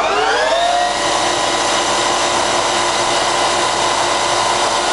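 Colchester Triumph 2000 lathe spindle and headstock gears running up to the top speed of 2000 rpm: the whine rises in pitch over about the first second, then runs steady and reasonably quiet.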